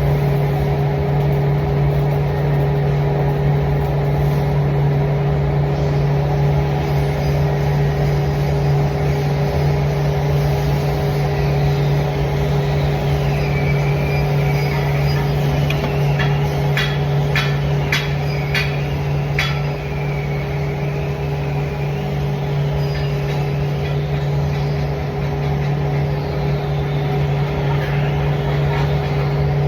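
A machine's steady hum, with a quick run of sharp clicks about two-thirds of the way through.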